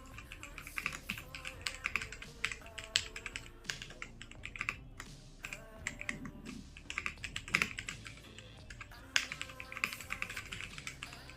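Kreo Hive 65 mechanical keyboard being typed on: a fast, irregular stream of key clicks, with a brief pause about five seconds in.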